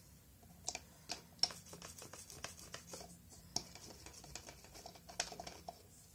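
Irregular light clicks and small scratches of hands handling a nail-art stamper.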